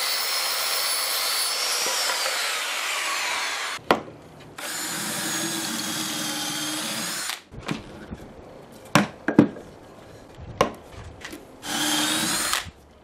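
Circular saw running through a cut in a 2x4 for about four seconds. Then a drill boring pocket holes through a Kreg pocket-hole jig for about three seconds, a run of knocks and clicks, and a short second burst of drilling near the end.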